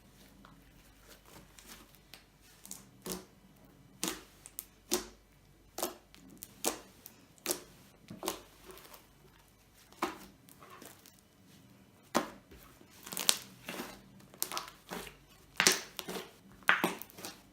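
White fluffy slime being squished and stretched by hand, making irregular sharp pops and crackles. It is faint at first, then pops come about once a second and crowd closer together near the end.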